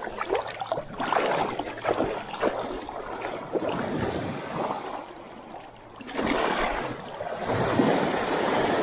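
Small waves sloshing and breaking in the shallows at the shoreline, in irregular surges; a larger wash comes in near the end.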